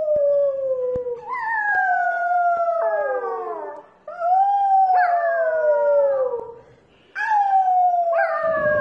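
A puppy howling: a series of long drawn-out howls, each sliding slowly down in pitch, with short breaks between them.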